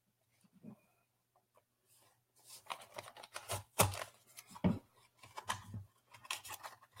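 Blind box packaging being handled and torn open: a few faint clicks, then a run of scrapes, rustles and sharp snaps, loudest almost four seconds in.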